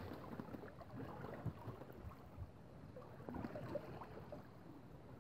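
Faint water lapping and splashing against the hull of a small sailing dinghy moving slowly under sail, in small irregular splashes over a low rush of water and light wind.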